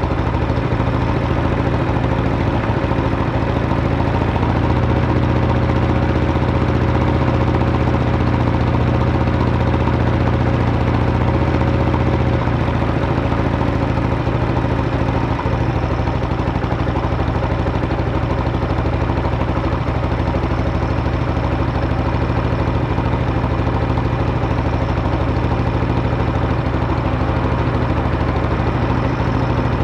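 Buell Blast's single-cylinder engine idling steadily while warming up.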